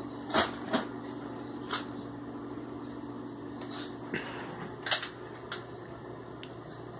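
A foam-dart Nerf blaster being fired and worked: about six short, sharp clicks and snaps spread over several seconds, the loudest about five seconds in, over a steady low hum.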